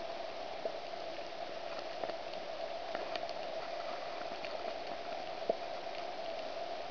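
Underwater reef ambience picked up by a camera underwater: a steady hiss with scattered sharp clicks and crackles, one louder click about five and a half seconds in.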